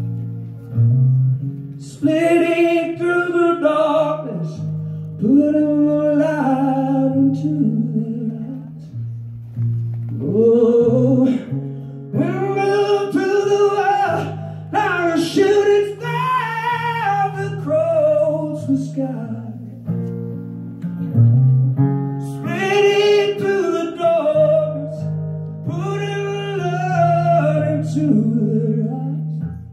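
A man singing with a strummed acoustic guitar in a live performance. There is a short break in the singing about two-thirds of the way through, where the guitar plays on alone.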